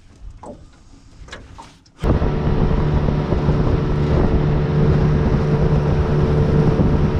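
Outboard motor of a small aluminium boat running steadily underway, with wind and water noise. It starts suddenly about two seconds in, after a few faint knocks.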